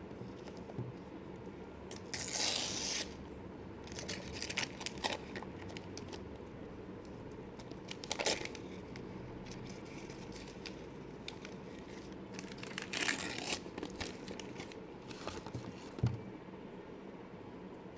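Gift-wrapping paper being torn and crumpled off a wrapped notebook, in several separate rips, the longest about two seconds in. A short soft thump near the end as the notebook is set down on the wooden desk.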